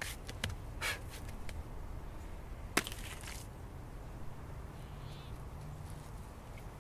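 Adobe bricks being handled and laid on the ground by hand: a few dull knocks and scrapes, the sharpest about three seconds in, followed by a brief gritty rustle.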